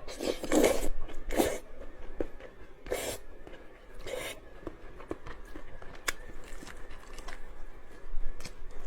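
Close-miked eating of noodles: four hissing slurps, the first and longest near the start, the rest a second or so apart, with soft chewing clicks between them.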